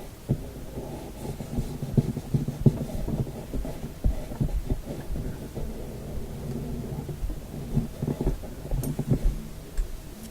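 Handling noise from work on a radio cabinet's dial glass: irregular dull knocks and low rumbling rustle, with a few sharper knocks around two to three seconds in and again about eight to nine seconds in.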